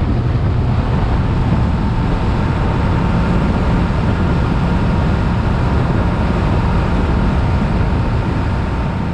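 A motorcycle riding at road speed: its engine and the rushing wind blend into a loud, steady rumble.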